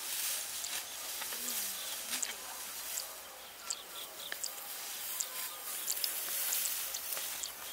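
Outdoor rural ambience: a steady high insect drone with scattered short, high chirps.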